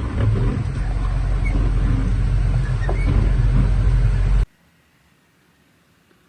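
Steady low rumble of a vehicle running, cutting off abruptly about four and a half seconds in, followed by faint room tone.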